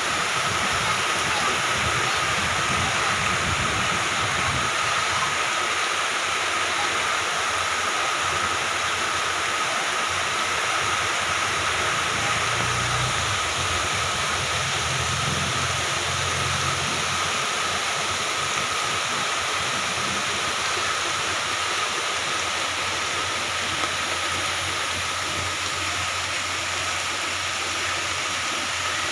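Moderate to heavy rain falling steadily: a dense, even hiss that holds at the same level throughout.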